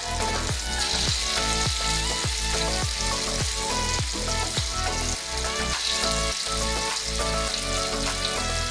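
Hot oil sizzling steadily as tofu balls deep-fry in a wok, under background music with a beat about twice a second.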